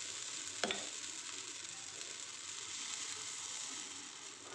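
Uttapam batter sizzling steadily in hot ghee in a kadai, with one sharp clink of a metal utensil just over half a second in.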